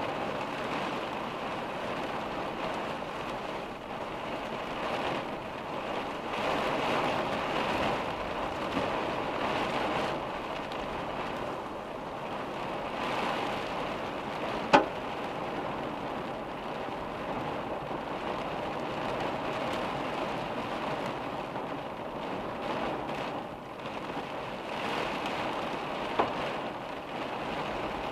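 Hard rain falling on a car's windshield and roof, heard from inside the car, swelling and easing in waves. Two sharp ticks stand out, one about halfway through and a smaller one near the end.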